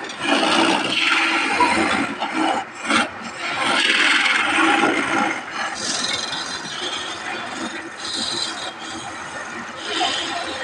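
Hand-held turning chisel cutting into a wooden spindle spinning on a wood lathe. It cuts in several strokes of different lengths, the loudest in the first half.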